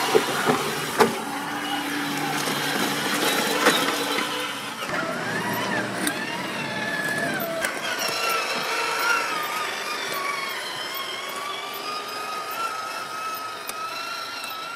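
Electric motor and gear drive of a 1/8-scale RC crawler whining, its pitch sliding up and down with the throttle. For the first few seconds this is mixed with water splashing around the wheels and a few sharp knocks, then it runs on alone as the truck climbs rock.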